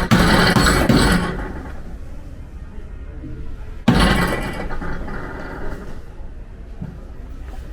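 Hammer blows on a car's dented steel body panel during panel beating: a flurry of strikes in the first second or so, then one sharp strike about four seconds in that dies away.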